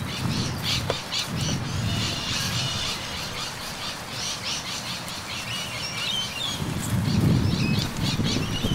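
Small birds chirping and twittering repeatedly, with a low rumble underneath that comes and goes, loudest near the end.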